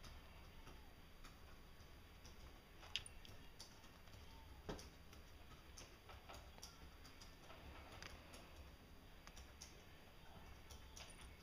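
Faint, irregular clicks and taps of a cat's paws and claws on a wooden floor as it swats at a laser dot. There is one sharper tap about three seconds in and a duller thump near five seconds.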